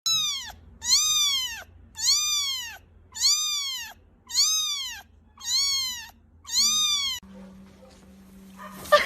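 A cat meowing seven times in a row at an even pace, each meow rising then falling in pitch.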